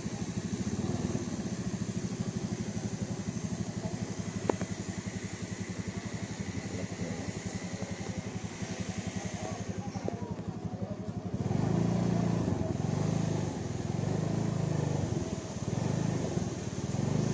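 A motorcycle engine running with a fast, even low pulse, getting louder about eleven seconds in and then swelling and easing in waves.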